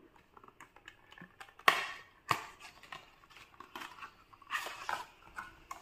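Cardboard shampoo carton being opened by hand: a sharp snap about a second and a half in, then another click, with light tapping and handling noise. A short scraping rustle comes near the end.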